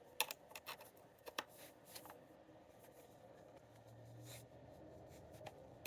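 Faint handling noise as a charging cable's plug is fiddled with and pushed into a port: scattered small clicks and rustles, most of them in the first two seconds, and a sharper click at the very end.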